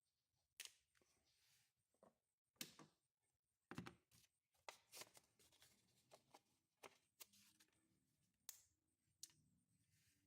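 Faint, scattered clicks and light taps, about a dozen at irregular intervals, from small knife parts being handled.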